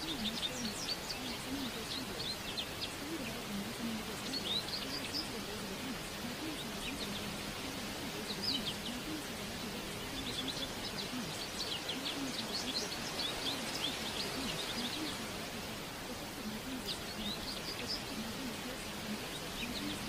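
Birds chirping and singing in scattered clusters over a steady background hiss, with a faint low murmur beneath.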